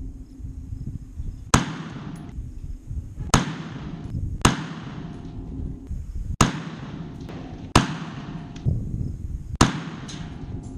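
Six rifle shots from a Bushmaster AR-15 in .223/5.56 fitted with a Carlson Nitro flash enhancer, fired slowly one at a time about one to two seconds apart. Each shot is a sharp crack with a brief ringing tail.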